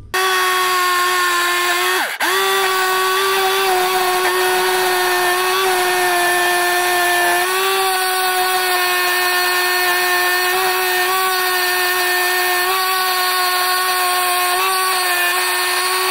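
Electric drill driving a reciprocating saw adapter mounted under a table, running steadily with a motor whine as its saw blade cuts through coconut wood. The sound breaks off briefly about two seconds in, and the pitch sags a little now and then under load.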